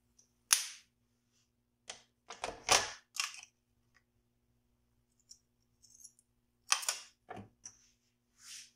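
Kitchen handling clatter: a handful of sharp knocks and clacks as metal serving tongs click against a ceramic plate and a plastic ketchup bottle is set down, with the loudest knocks about two to three seconds in and again near seven seconds.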